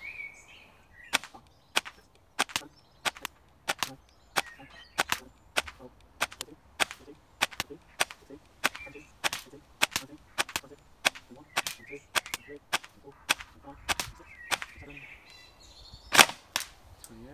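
Airsoft electric rifle firing single shots in semi-auto, a steady string of sharp snaps about two a second, with a louder shot near the end.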